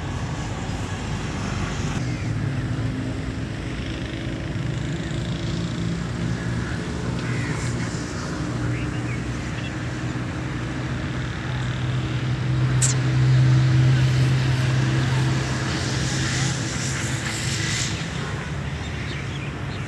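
A motor engine running steadily, a low hum that grows louder about twelve seconds in and then eases off.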